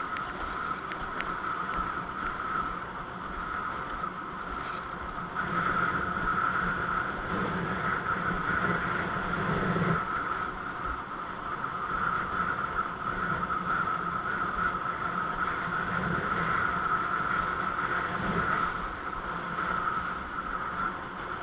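A Fanatic Ultra Cat longboard windsurfer sailing: water rushing along the board, with wind on the microphone and a steady high hum. It gets louder about five seconds in.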